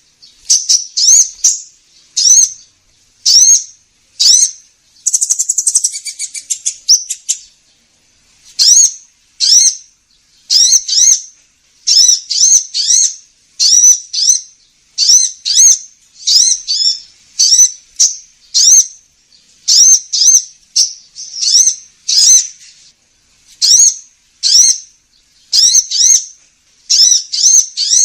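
Lure recording of a sunbird (the 'kolibri ninja') calling: sharp, high chirps in quick pairs and clusters, about one cluster a second, with a short buzzy trill about five seconds in.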